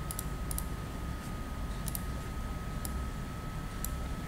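Computer mouse clicking: sharp short clicks, some in quick pairs, roughly a second apart. Under them runs a steady thin whine and a low hum of recording noise.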